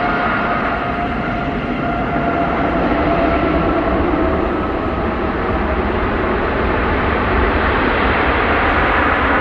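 Jet engines of a Wizz Air Airbus A320-family airliner on its landing rollout just after touchdown: a loud, steady rush of engine noise. A whining tone fades over the first few seconds while the rushing sound grows.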